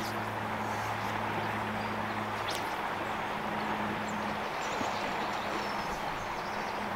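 Steady outdoor background noise with a low hum underneath, and a few faint bird chirps about four to five seconds in.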